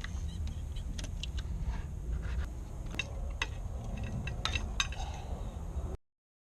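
Scattered light metallic clinks and taps, like tools or small metal parts being handled, over a steady low rumble. The sound cuts off abruptly near the end.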